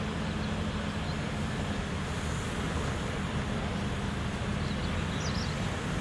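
Diesel engine of a Manitou MRT2145 rotating telehandler running steadily while its telescopic boom is worked, under a steady rush of outdoor noise.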